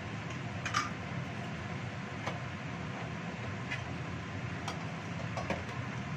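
Spicy chicken-feet sauce boiling in a wok over a gas burner: a steady low rumbling hiss with a few sharp pops of bursting bubbles, the loudest about a second in.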